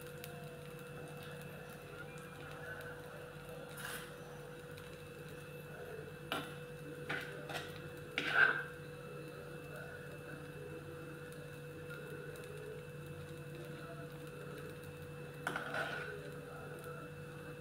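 Steady low kitchen hum with a few sharp knocks and clinks of a spoon and cookware on a dosa tawa. The loudest comes about halfway through, and a short cluster near the end comes as potato masala is put onto the dosa.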